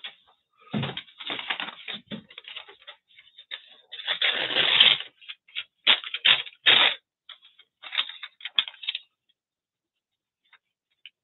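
Glossy magazine paper and paper scraps rustling and crinkling in the hands in irregular bursts, with one longer, louder crinkle about four seconds in.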